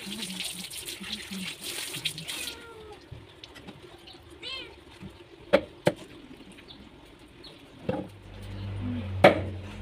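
Tap water running onto hands and raw chicken, stopping after about two and a half seconds. Then a few sharp knocks of a large knife on a wooden chopping block, the loudest about halfway through and another near the end.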